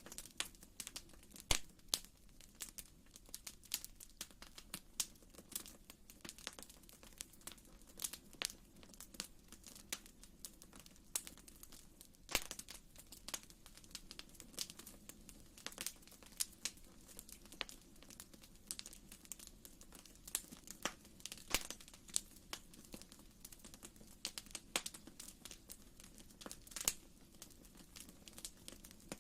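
Wood fire crackling in a fireplace: irregular sharp pops and snaps, a few a second, over a steady low rumble of the flames.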